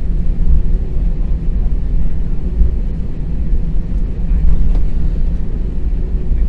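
Airbus A320 cabin noise while taxiing: a steady low rumble from the engines and the rolling aircraft.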